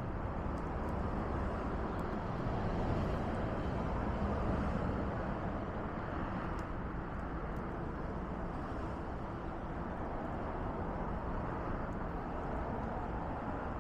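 Fallen leaves burning in a smokeless carbonizer: a steady rushing of the fire with a few faint crackles.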